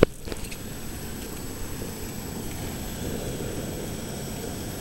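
Small wooden fishing boat's engine running with a steady low rumble, after a short click at the very start.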